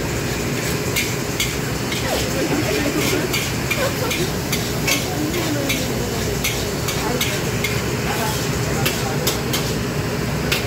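A metal ladle clanking against a wok about twice a second as fried rice is stir-fried and tossed, with the rice sizzling. Under it runs a steady rush from the commercial wok range.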